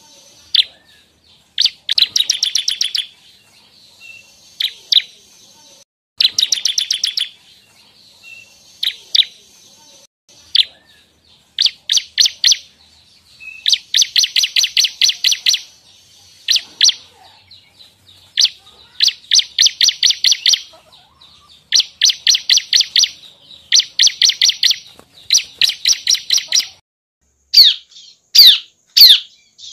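Bar-winged prinia (ciblek) singing: trills of rapidly repeated high notes, each about a second long, coming again and again with single sharp chips between them. Near the end the song breaks into a few separate falling notes.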